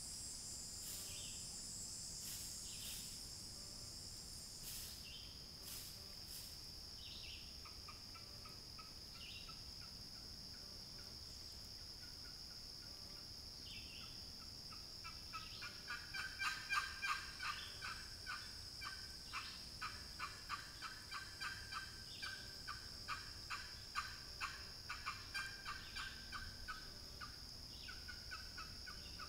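A walnut-over-chestnut turkey box call run from about 50 yards away, making hen-turkey yelps. Faint, soft calls come about a quarter of the way in, then a long run of quick, louder yelps from about halfway on.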